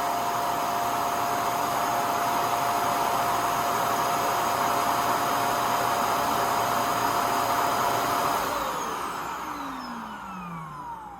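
Ecovacs Deebot N8 Pro+ self-empty station's suction motor running steadily with a whine, emptying the robot's dustbin into the station's bag. About 8 seconds in it shuts off and winds down, its pitch falling as the noise fades.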